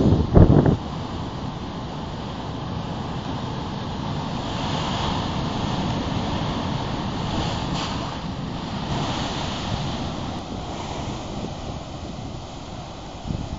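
Heavy ocean surf breaking and churning against rocks: a steady wash that swells louder through the middle. Wind buffets the microphone in the first second.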